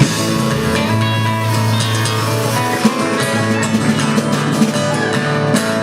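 Live country band music without vocals, guitar to the fore over held bass and chord notes.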